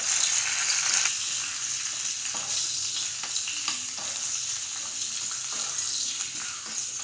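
Dried turkey berries (sundakkai vathal) sizzling steadily as they fry in hot oil in a small pan. A spoon stirs them and scrapes the pan now and then with a few short clicks.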